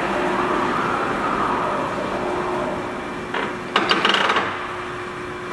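American engine lathe's geared headstock running, the sound easing off after about three seconds; then a quick run of sharp clunks and clatter as the speed-change gear levers are shifted.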